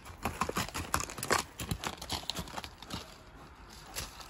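Horse's hooves striking a dirt track in quick, irregular hoofbeats, thinning out after about three seconds as the horse comes to a halt.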